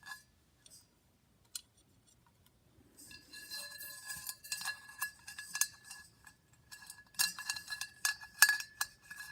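Parts of a ceiling fan's light housing clinking and rattling as they are handled and fitted back together, with a faint ringing note under the clinks. It starts about three seconds in, and the clinks grow louder near the end.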